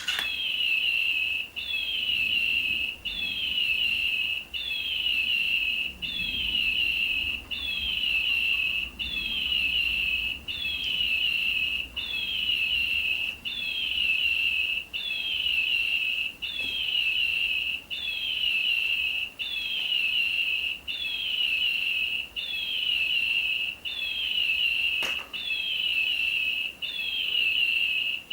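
Battery-powered toy bird playing a looped electronic chirp: the same high, falling whistle-chirp repeats about every one and a half seconds, identical each time.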